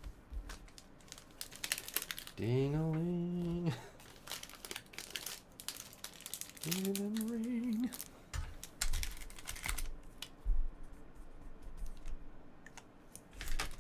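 Crinkling and rustling of trading-card pack wrappers and cards being handled, a dense run of small clicks and crackles.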